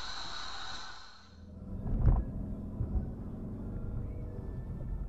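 Road and engine rumble of a car in motion, heard through a dashcam microphone. The hissy noise fades away about a second in, and the sound comes back as a low rumble with a single thump about two seconds in.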